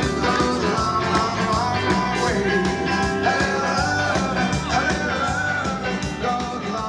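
Upbeat rock and roll song with a singer over a steady beat.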